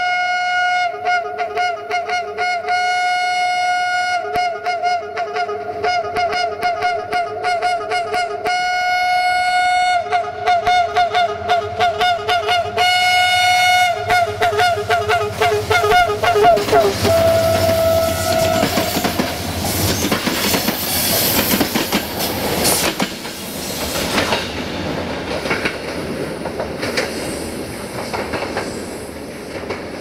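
Diesel locomotive 64-0974-7's two-tone horn sounding a long show of blasts for about the first seventeen seconds, held chords alternating with fast rippling toots. Then the train passes close, engine running and wheels clattering over rail joints, fading away near the end.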